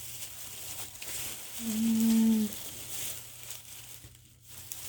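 Packaging crinkling and rustling as craft-store items are handled. About two seconds in, a woman gives a short, held hum of about a second.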